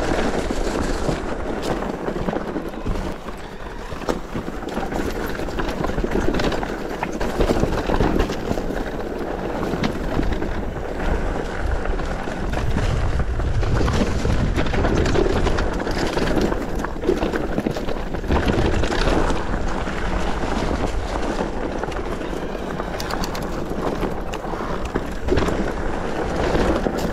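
Mountain bike rolling down a rough dirt trail: tyres crunching over gravel and stones, with the frame and chain rattling in many short knocks and wind rumbling on the microphone.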